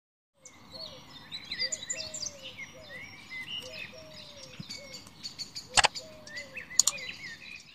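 Several birds chirping and warbling, with a repeated lower falling whistled note, over a steady background hiss. Two sharp clicks about a second apart come near the end.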